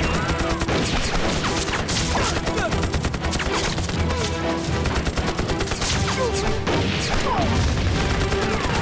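Battle din of rapid heavy machine-gun fire and rifle shots, with bangs and crashes, continuing without a break.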